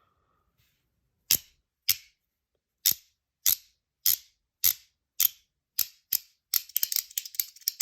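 A magnetic haptic fidget coin clicking sharply as it is flicked from magnet to magnet, about two snaps a second. Near the end this breaks into a fast run of clicks.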